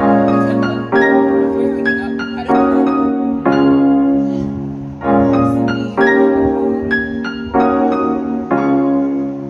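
Background piano music: a calm piece of chords that change about once a second.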